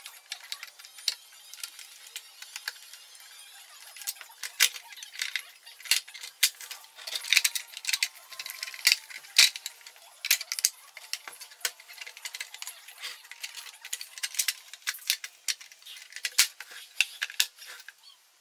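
Irregular clicks, clinks and knocks of a screwdriver, small screws and hands against the plastic housing of an IKEA SY sewing machine being taken apart, busiest between about four and ten seconds in.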